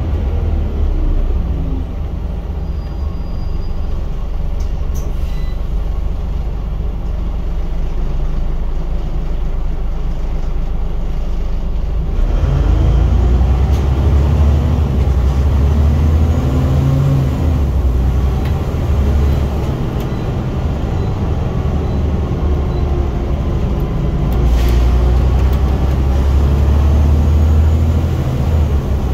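Scania single-deck bus engine heard from the rear seats, driven hard: a loud, continuous running note whose pitch rises and drops again several times as it pulls through the gears, getting louder about twelve seconds in.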